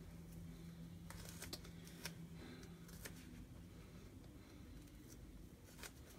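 Faint handling sounds: fingers working at a stuck silkscreen transfer on a microfiber towel, with a few soft ticks and rustles. A faint low hum fades out about halfway through.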